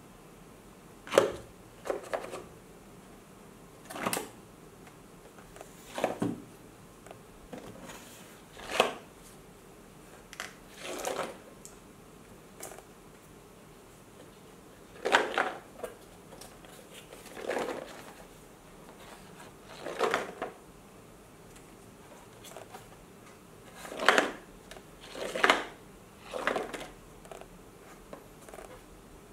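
A metal coin sliding and knocking against the cardboard walls and clear plastic panel of a tilted maze coin box, in irregular clacks and short rattles every second or two.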